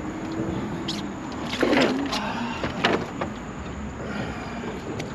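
A few sharp knocks and a rougher clatter on a small fishing boat as a large fish and landing net are handled on the deck, the loudest about a second and a half in, over a steady outdoor hiss.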